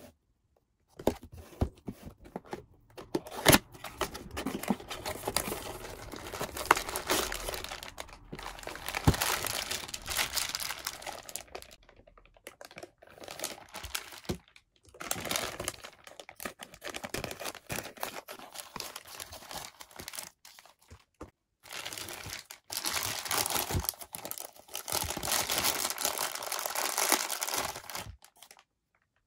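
Close-up unboxing sounds: a cardboard figure box cut open with a box cutter and handled, with sharp clicks and taps, then clear plastic bags holding the figure's parts crinkling and tearing open. The handling comes in stretches broken by short pauses.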